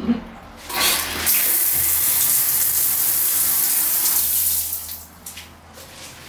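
Large overhead shower head spraying water after its valve is opened: a steady hiss that starts about a second in, then dies away about five seconds in as the valve is shut.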